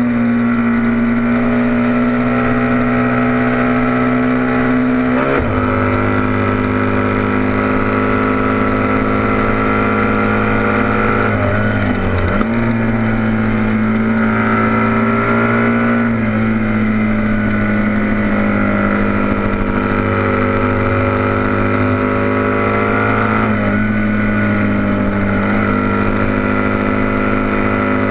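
Onboard sound of a vintage heavyweight production motorcycle's engine racing at steady high revs. Its pitch dips and shifts briefly a few times, about five, twelve, sixteen and twenty-three seconds in.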